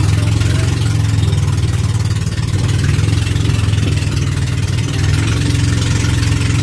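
Boat engine running at a steady speed, a loud, even low drone.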